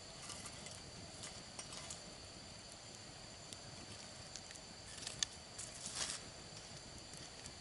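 Wood campfire crackling faintly with scattered small pops, and a few louder crackles or knocks about five to six seconds in.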